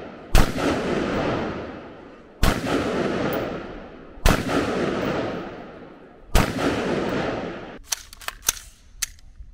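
Four shots from a .223 Remington carbine, about two seconds apart, each followed by a ringing echo, fired while sighting in the rifle's optic. A few light clicks near the end.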